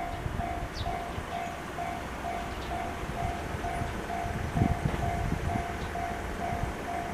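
JR standard electronic level-crossing alarm ringing, a steady repeated ding of about two tones a second, over low rumbling with a few heavier thumps about two-thirds of the way in.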